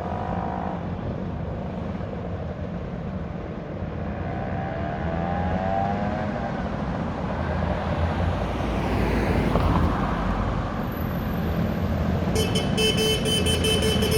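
Engines of a group of vehicles in a ride-out running steadily and growing louder. Near the end, horns toot repeatedly.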